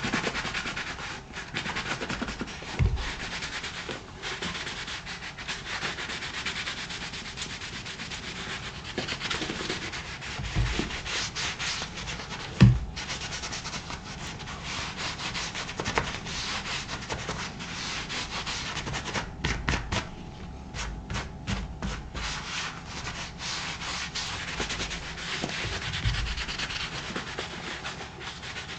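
Buffing glove rubbed over a black leather moc-toe boot, buffing shoe cream into the leather: a continuous scuffing rub, with a run of short quick strokes about two-thirds through. A few dull knocks, the loudest near the middle.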